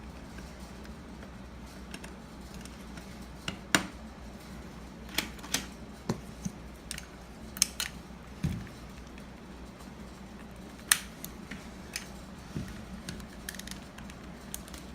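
Scattered clicks and light knocks of door-lock hardware being handled and fitted, small plastic and metal parts tapping and snapping against each other, over a faint steady hum.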